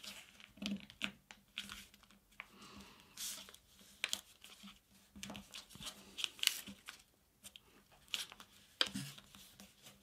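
Folded paper rustling and crinkling as fingers press down and flatten a squash fold through several thick layers of the sheet, with a few sharper crackles in among the softer rustles.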